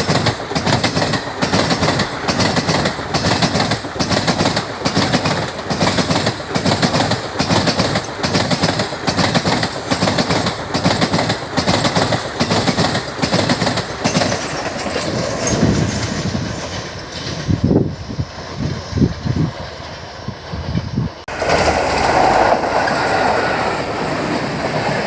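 Indian Railways train wheels clattering over rail joints in an even rhythm of roughly two clacks a second. About two-thirds through, the rhythm breaks up into a few heavy thuds. It then changes suddenly to a steadier rumble of the train running on.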